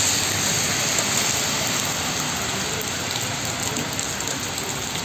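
Heavy rain pouring down onto a flooded paved street: a steady, dense hiss.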